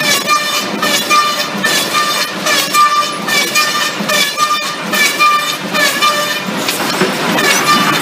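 Lumber conveyor line with an automatic label applicator running, boards passing fast: a regular knock with a short ringing squeal about twice a second over a steady clatter.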